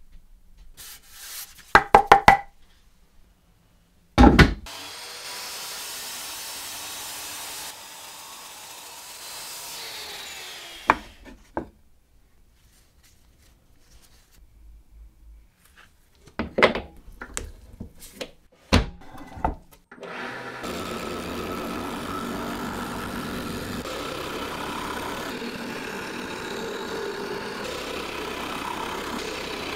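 Wooden pieces knock as they are handled, and a power saw cuts through the wood and then spins down. After more knocks, a lathe runs from about two-thirds of the way in, its chisel cutting a spinning wooden blank into a cylinder with a steady scraping.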